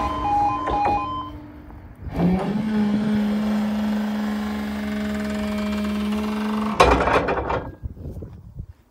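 Level crossing warning alarm sounding its alternating two-tone pattern, which stops about a second in. Then the barrier mechanism's motor starts up and hums steadily for about four and a half seconds while the barrier boom rises. It ends in a loud clunk and a brief rattle as the boom reaches upright.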